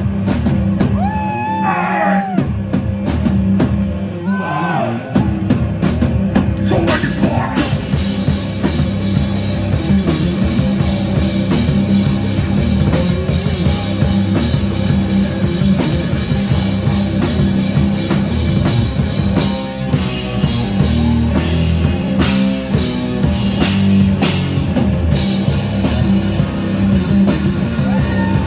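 Rock band playing live: drum kit, electric guitar and singing, with sliding pitched notes over the first few seconds before the full band plays densely.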